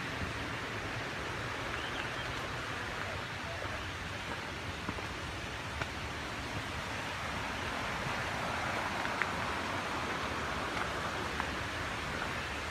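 Steady rushing of a creek, swelling slightly about eight seconds in, with a few faint ticks over it.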